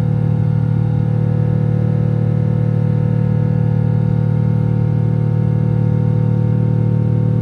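Boeing 777 jet engines at climb power heard from inside the cabin: a loud, steady low drone with several held tones above it.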